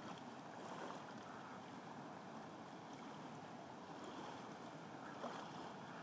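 Faint, steady rush of water tumbling over the rapids of a small waterfall.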